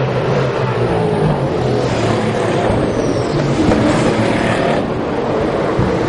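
V8 Supercar race engines running hard out of sight on the street circuit, a loud continuous drone whose pitch shifts as the cars accelerate and change gear.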